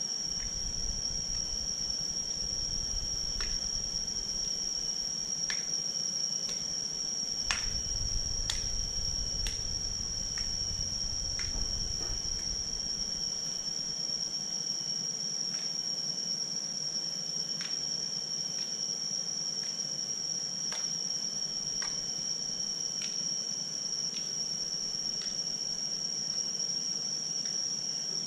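Steady, high-pitched insect drone, a continuous shrill trill, with scattered short ticks over it and a low rumble through the first half.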